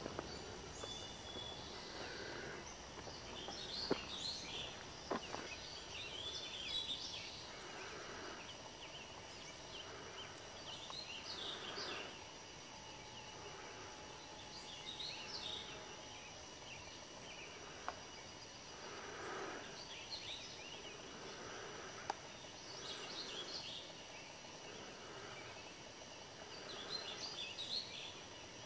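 Wild songbirds singing: short phrases of quick chirps every few seconds, over a soft hiss, with a few sharp clicks.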